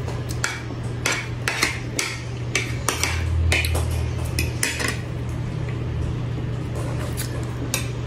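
A metal spoon and fork clinking and scraping against a plate while eating. There are frequent sharp clicks over the first five seconds, and fewer after.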